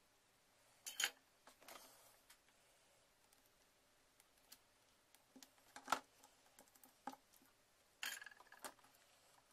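Faint handling noise of a soldering job: a few short sharp clicks and light taps as the soldering iron and the thin cable wires are handled on a cutting mat, in three small clusters, about a second in, in the middle and near the end.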